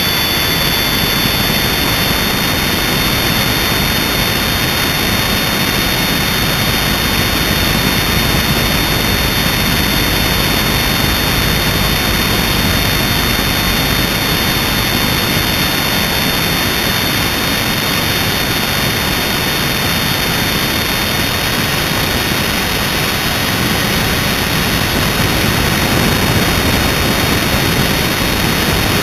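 Electric motor and rotor blades of an MJX RC helicopter in flight, heard from a GoPro mounted on it: a steady, loud rushing drone with a constant high whine that shifts slightly in pitch a couple of times as the throttle changes.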